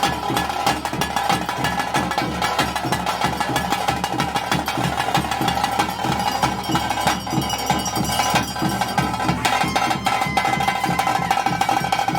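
Bhoota kola ritual music: fast, dense drumming with clanging metal percussion over a steady held high tone.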